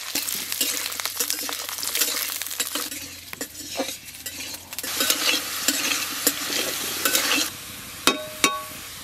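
Diced potatoes sizzling in hot oil in an iron wok, with a metal spatula scraping and clinking against the pan as they are stirred. The sizzle drops away near the end, leaving a couple of sharp clinks.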